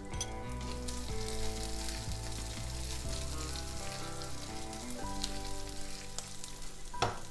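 Chopped garlic, ginger and green chilies sizzling in hot oil with cumin and nigella seeds in a nonstick frying pan, stirred with a silicone spatula.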